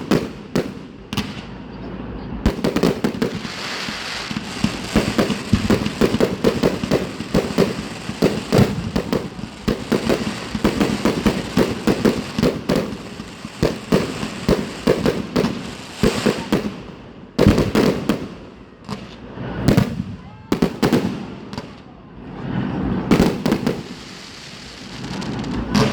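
Fireworks display going off: a dense, rapid barrage of bangs and crackling for most of the first two-thirds, then separate volleys of bursts with short lulls between them.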